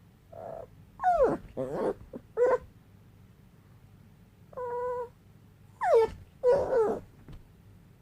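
Shih tzu whining in about seven short, high calls, several sliding down in pitch: a dog worried by its owner lying still.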